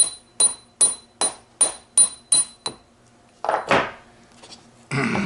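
Light hammer taps on a metal part of a Ford 2000E gearbox, about eight evenly spaced strikes at roughly two and a half a second, each ringing metallically; they stop near three seconds in, followed by a short scrape and a louder clatter of metal near the end.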